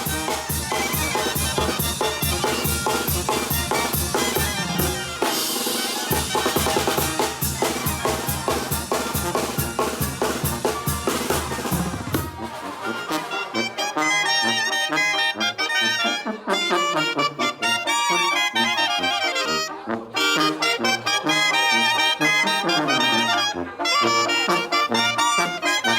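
Mexican banda brass band playing live: brass and drums keep a steady beat for about the first twelve seconds, then the drums drop back and the brass carries the melody.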